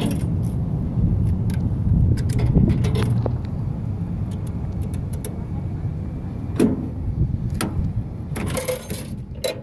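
Steady low rumble of passing highway traffic, with scattered clicks and rattles from a payphone being handled and dialed.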